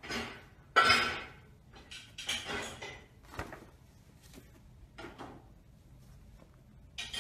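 Paper shopping bag rustling and crinkling in short irregular bursts as a kitten moves about inside it, the loudest about a second in, with a sharp tap about three and a half seconds in.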